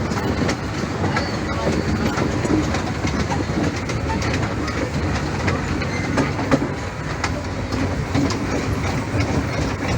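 Amusement-park toy train running along its track: a steady rumble with frequent clacks of the wheels over the rail joints.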